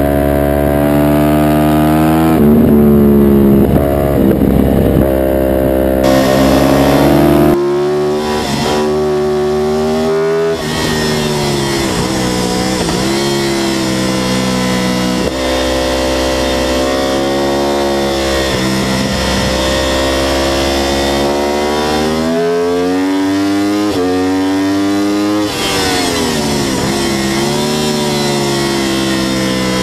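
Sportbike engine heard onboard at racing pace on a track, its pitch climbing hard under acceleration and dropping several times as it shifts and slows for corners, with wind rushing past.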